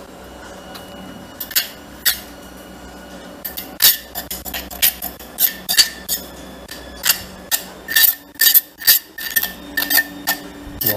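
A utensil clinking and scraping against a mortar and a ceramic plate as papaya salad is served out. A run of short, sharp clinks that come thicker after about four seconds.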